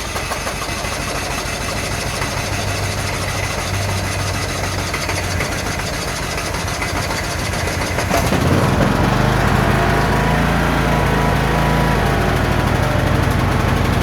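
Key-start lawn mower engine running on choke after starting, with road diesel mixed into its fuel. About eight seconds in it gets louder and deeper.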